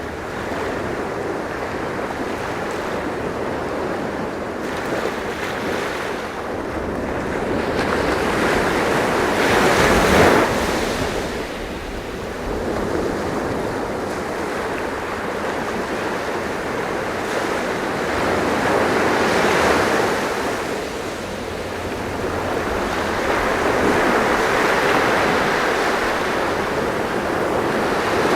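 Ocean waves breaking on a shore, a steady wash of surf that swells as waves break about a third of the way in, again near two-thirds, and once more toward the end, with some wind.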